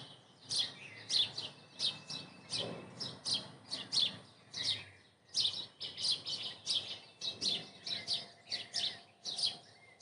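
Small songbirds chirping busily: a rapid run of short, sharp, high-pitched chirps that slide downward, about two or three a second, with no pause.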